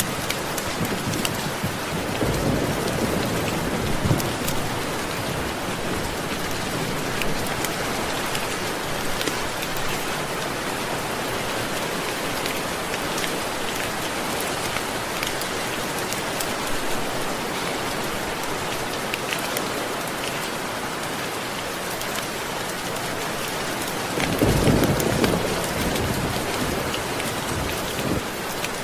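Steady heavy rain falling, with thunder rumbling low twice: once a few seconds in, and again more loudly near the end.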